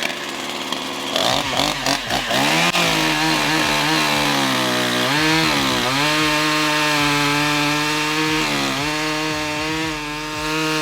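Two-stroke chainsaw running at high revs, revving up about a second in; its pitch dips and recovers twice, around the middle and near the end.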